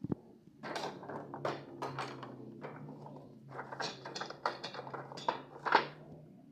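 A sharp click, then several seconds of irregular rustling and light knocks as toy packaging and its contents are handled.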